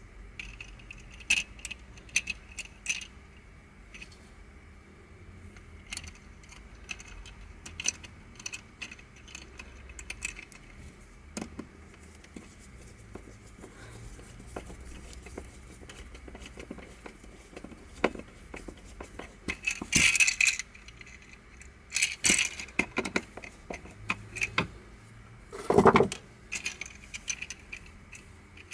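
Black plastic pieces of a Crazy Octahedron Plus twisty puzzle clicking and clacking against each other as it is assembled by hand. Scattered sharp clicks, a few louder rattling clatters in the second half, and one duller knock near the end.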